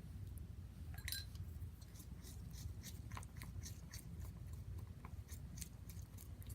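Slime being stirred as it activates with borax solution: faint, irregular sticky clicks and crackles, becoming denser after about two seconds, as the mixture starts to clump together.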